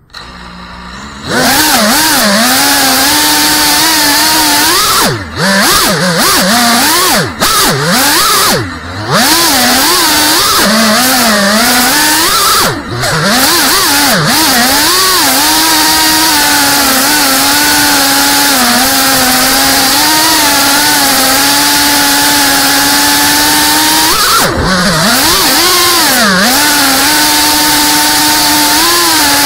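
A 3.5-inch FPV quadcopter's brushless motors and propellers spin up about a second in, then whine loudly and steadily with a hiss on top, heard from a camera mounted on the quad. Several times the pitch swoops down and back up with the throttle.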